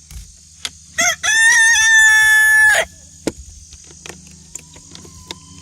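Rooster crowing once, loud and close: a short first note, a rising second note, then a long held final note of about two seconds.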